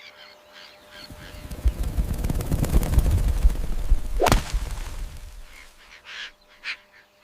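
Animal sounds: a low, rough rumble swells through the middle, with one sharp squeal about four seconds in and a few short calls near the end.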